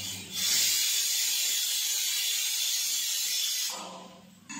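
Loud, steady hiss of steam from cooking on the stove. It starts abruptly and dies away about a second before the end.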